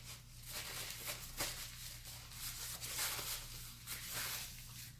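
Close-miked eating sounds: chewing and handling food, heard as a string of short crackly noises over a low steady hum.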